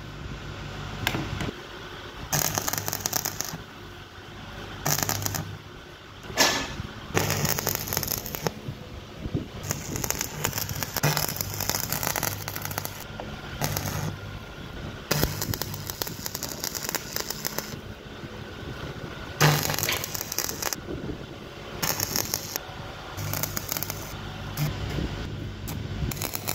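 Stick (arc) welding with a coated electrode on a steel bar grating: the arc crackles in runs of one to three seconds at a time, with short breaks between welds and a low hum underneath.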